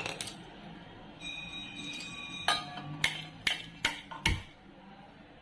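Gas stove being switched on: a run of sharp clicks, about five over a second and a half, followed by a dull thump.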